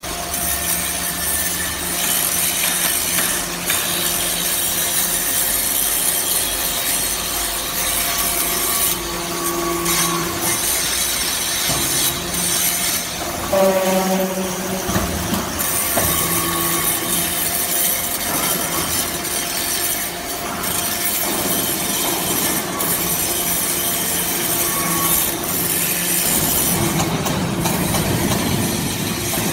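Metal-chip briquetting press line running: a steady machine hum under continuous metallic scraping and rattling of metal chips on the slat conveyor, with a short squeal about fourteen seconds in. The sound turns deeper near the end.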